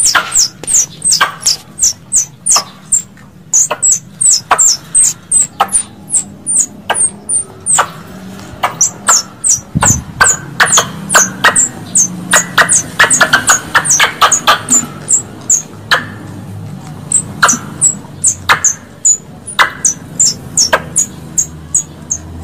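Squirrel calling: a long run of sharp, high-pitched chips, each dropping in pitch, several a second, with a denser chattering stretch in the middle. A recorded squirrel call of the kind played as a hunting lure.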